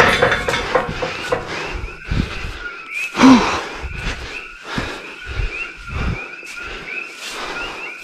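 Footsteps pushing through grass and brush with heavy, strained breathing, and a loud grunt about three seconds in. Short high chirps repeat steadily in the background.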